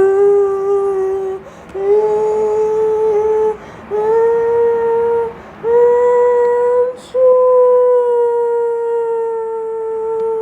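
A voice holding a series of long, steady notes with short breaths between them, each note a little higher than the one before; the last is held for about four seconds.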